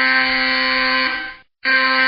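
Alarm sounding in long blasts of about two seconds, each a harsh stack of steady tones whose lowest note steps up slightly near the end before it fades out. A brief silent break comes about a second and a half in, then the next blast starts.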